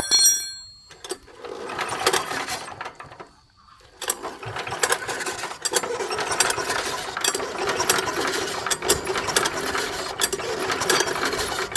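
A short metallic ring, then a small machine running with a rapid mechanical clatter: a brief run about a second in, a pause, then a longer steady run from about four seconds in.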